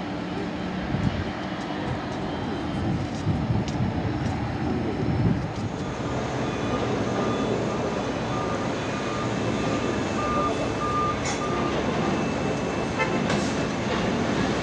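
Jet engine noise of airliners: the low rumble of an Airbus A340-300 on its takeoff run for the first few seconds, then a steadier, lighter engine noise from taxiing airliners with a faint whine on and off.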